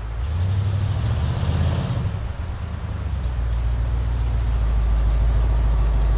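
A vehicle engine running with a steady low rumble, with a brief hiss over it in the first two seconds.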